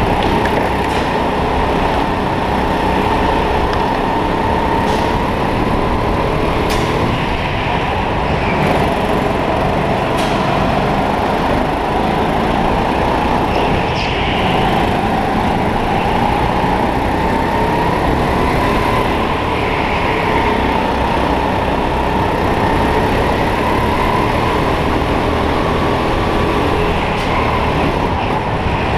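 Racing kart's motor running steadily at speed, heard from a camera mounted on the kart, its pitch rising and falling a little through the corners. A few short sharp knocks sound over it.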